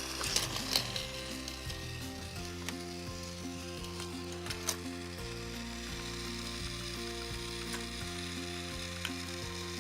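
A simple tune of short stepping notes plays over a steady hiss, with a few sharp clicks just after the start and about five seconds in.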